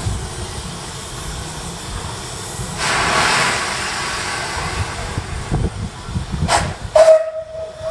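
Steam locomotive working slowly with a steady hiss and low rumbling, and a louder burst of steam hiss about three seconds in. Near the end come two short sharp sounds, then a steady high tone.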